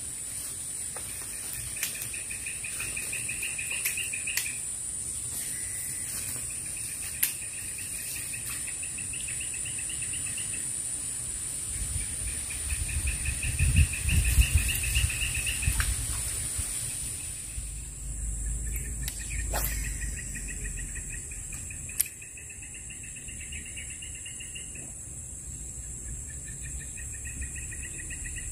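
Insects and birds in a tropical swamp: a steady, high-pitched insect drone with repeated pulsing trills of one to three seconds each. A low rumble comes in midway, and there are a few sharp clicks.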